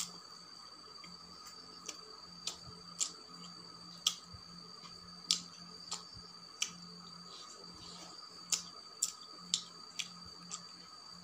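Close-miked eating sounds: about a dozen sharp, irregular clicks and smacks of chewing and lips, spaced unevenly, over a faint steady high whine.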